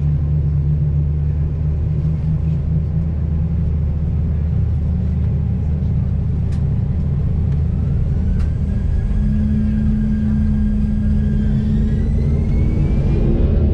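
Airbus A340-300's four CFM56-5C turbofans at takeoff power during the takeoff roll, heard inside the cabin over the wing: a heavy, steady rumble with a fan whine that rises in pitch over the second half.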